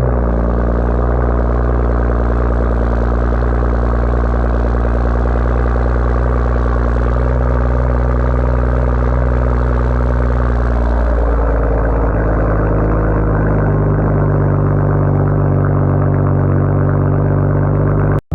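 2023 BMW M240i xDrive's turbocharged 3.0-litre inline-six running through a muffler-deleted, resonator-delete exhaust at fast idle just after a cold start; about eleven seconds in the idle speed drops and settles lower.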